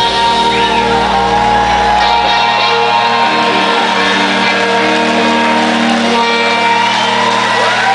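Live rock band letting the song's final chord ring out on electric guitars, the lowest bass dropping away about two and a half seconds in, while the crowd shouts and whoops.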